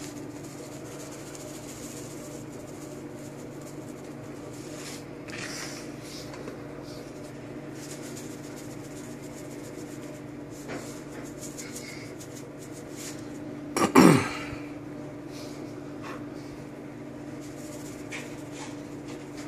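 Seasoning shakers giving faint scattered taps and rattles while they are shaken over food in a pot, over a steady low hum. One loud cough-like burst from the person about two-thirds of the way through.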